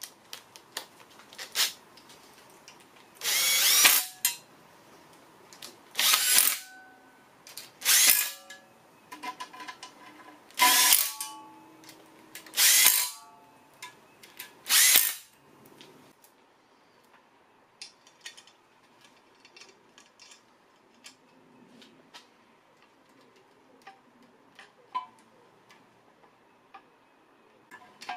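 A handheld power driver runs in six short bursts of about half a second to a second each, spinning bolts down into the windage tray on a Honda K24 engine block. After that, faint metal clicks and taps as parts are handled.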